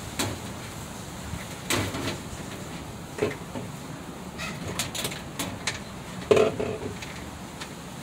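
Clicks, knocks and clatter of parts being handled inside a refrigerator's freezer compartment, around its rear cover panel. A handful of sharp knocks sound over a steady low hum, with the loudest clunk about six seconds in.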